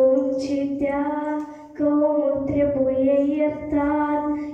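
A young girl singing a folk song into a microphone, with long held notes and a short breath about two seconds in.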